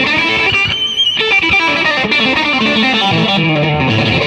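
Rock song with a distorted electric guitar, played as a backing track.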